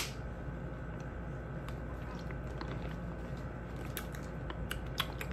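A person drinking water from a plastic bottle: a sharp click at the start, then faint swallowing and small scattered clicks and crackles of the bottle and mouth over a steady low background hum.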